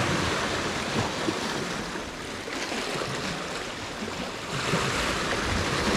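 Sea waves washing against a rocky shore: a steady rushing wash that eases off in the middle and swells again near the end.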